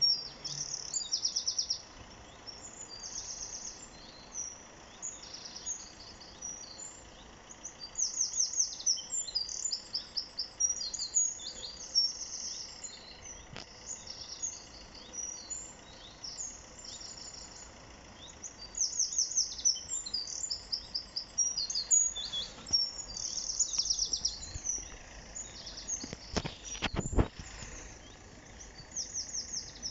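Songbirds singing, with bursts of rapid high trills coming and going over a low background hum. Near the end there are a few dull knocks.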